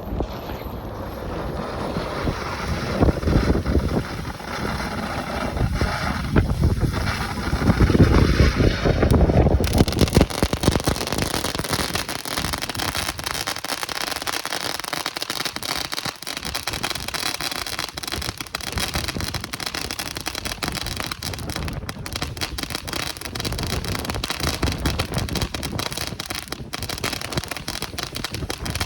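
Wind buffeting the microphone, then about ten seconds in a cone fountain firework starts spraying sparks with a steady, dense crackling hiss that lasts until near the end.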